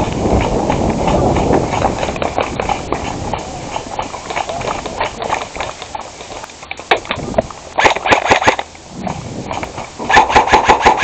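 Rapid bursts of shots from airsoft or paintball guns, sharp snapping clicks in quick succession: a short burst about eight seconds in and a longer, louder one a little after ten seconds. Before them, rough jostling movement noise from the player running.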